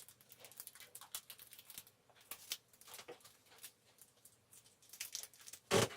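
Faint, irregular small taps and rustles of hands sowing seeds into a plastic pot, with one louder knock near the end.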